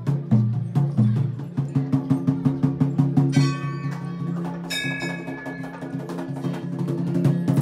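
Music with a fast, steady percussive beat over a held low tone. Two bright bell strikes ring out over it, about three and a half and five seconds in.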